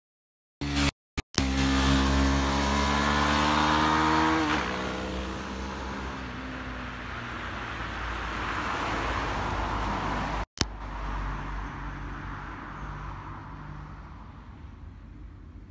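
Road vehicles passing close by. An engine revs up with rising pitch, then drops in pitch as it goes past about four seconds in. A van and a car follow with tyre and engine noise that swells and then fades. The sound cuts out briefly near the start and again about ten seconds in.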